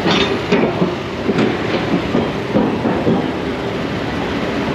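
Low rumbling noise of motorcycles and scooters moving slowly onto a vehicle ferry's deck, heard from a helmet camera, with a few sharp clanks in the first second and a half.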